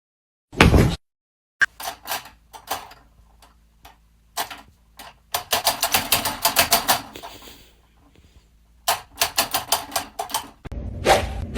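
A short thump, then several runs of rapid sharp clicks or taps, several a second, with quiet gaps between the runs.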